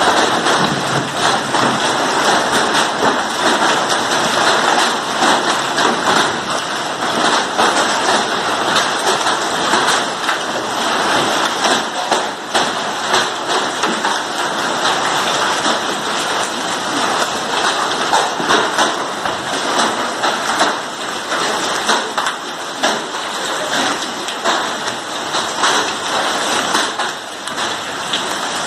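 Heavy hail and rain pelting hard ground and roofs: a dense, steady clatter of countless small impacts in a loud hiss.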